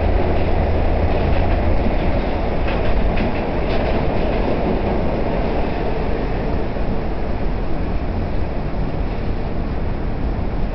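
Steady roar of an R68 subway car running at speed through a tunnel, heard from inside the car. There are a few light clicks of the wheels over rail joints about three seconds in.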